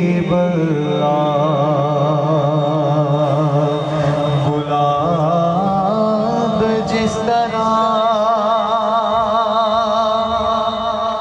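A male voice chanting durood (salawat on the Prophet) in a slow, drawn-out melody: long held notes with a wavering vibrato, stepping between pitches from phrase to phrase.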